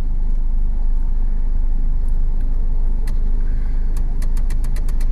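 Steady low rumble of a car's engine and road noise. About four seconds in, a rapid, even ticking begins, roughly five ticks a second.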